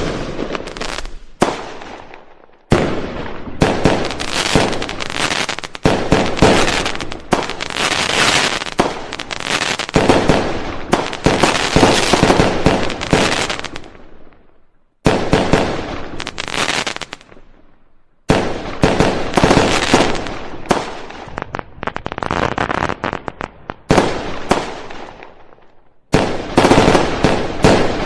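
Fireworks going off in rapid volleys: dense, crackling strings of loud bangs and pops that swell and fade in runs of several seconds, with short lulls between them.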